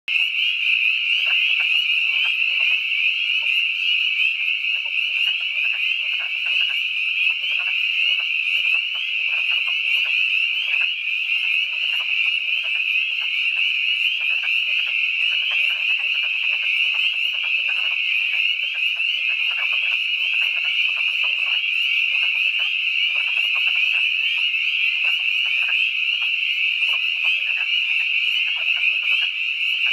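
Dense chorus of spring peepers, a continuous mass of high peeps, with many short, lower calls of wood frogs scattered through it.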